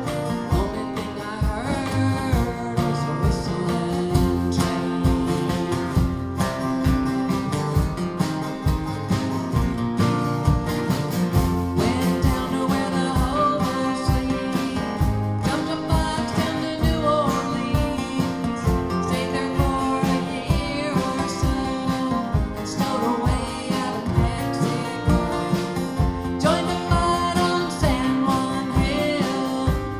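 Live country-folk song: a woman singing over a strummed acoustic guitar, with a second guitar playing along.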